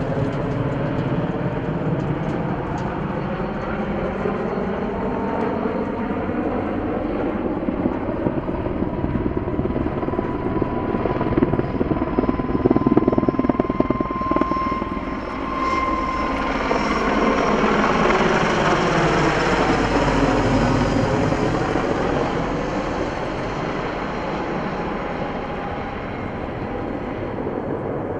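Mil Mi-26 heavy-lift helicopter's rotor and turbine noise, a loud steady drone. It swells to its loudest around the middle, with a thin high whine, as if the helicopter is passing close by, then eases slightly toward the end.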